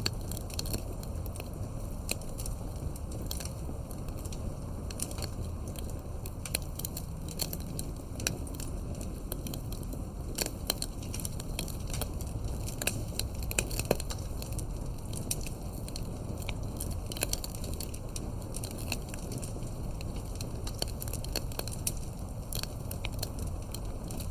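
Wood fire burning steadily with a low rumble and constant irregular crackling and popping, a few louder pops midway.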